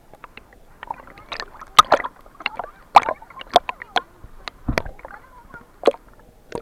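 Snorkeling in seawater: water sloshing and gurgling around the microphone, with irregular sharp pops and clicks.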